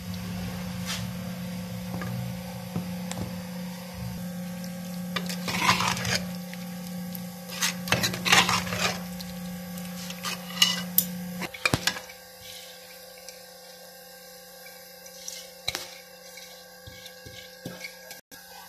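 Steel ladle stirring and scraping in a pot of simmering potato and tomato curry, with runs of clattering strokes through the middle. A steady low hum cuts out about two-thirds of the way in.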